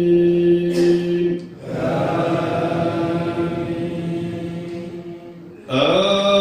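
A man chanting Quran recitation into a microphone in long, drawn-out melodic notes. A long held note ends about one and a half seconds in and a quieter stretch follows. Near the end a new phrase starts with a rising note that is then held.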